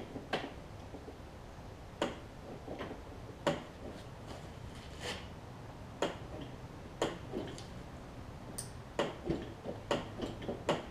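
Irregular light clicks and knocks as the blade clutch lever and cable on a Toro Recycler push mower are worked by hand to test the cable's tension.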